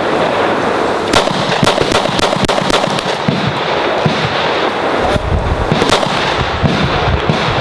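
Taurus G2 9 mm semi-automatic pistol being fired in a quick string of shots.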